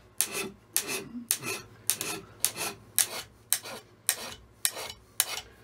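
Hand scraper cutting a cast-iron straightedge casting: about ten long, heavy strokes, one roughly every half second, each starting with a sharp bite and trailing off in a short rasp. This is rough "area" scraping to get down below the milling marks.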